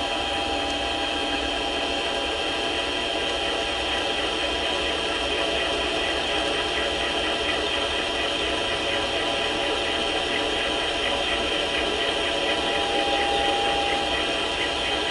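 Mini lathe running with a form tool cutting a radius on the end of a 1018 steel rod: a steady whine with an even cutting hiss. A tone in the whine grows stronger briefly shortly before the end.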